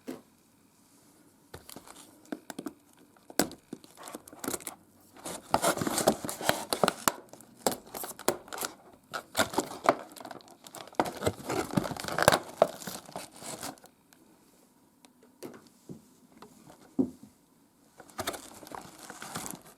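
Packaging being handled and pulled open: irregular crinkling and rustling that comes and goes. It is busiest from about five to fourteen seconds in, with quieter gaps between handlings.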